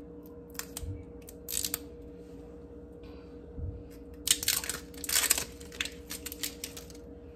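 Handling of a plastic bottle of poppy seed salad dressing: a few clicks and a brief rustle, then a run of short scraping, rattling bursts about four seconds in as the bottle is worked before pouring.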